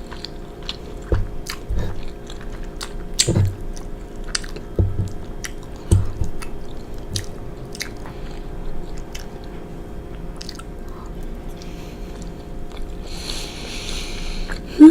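Close-miked chewing of soft penne pasta in a creamy pesto-hummus sauce: irregular wet mouth clicks and smacks with soft low thuds, busiest in the first half. A loud burp starts at the very end.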